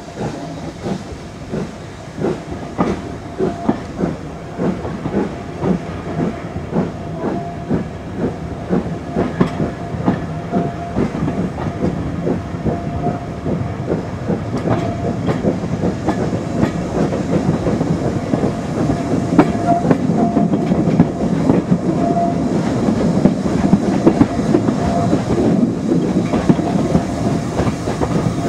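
Steam-hauled train pulling away, heard from a carriage window: the locomotive's exhaust beats and the wheels' clickety-clack come quicker and grow louder as the train gathers speed, over a steady hiss.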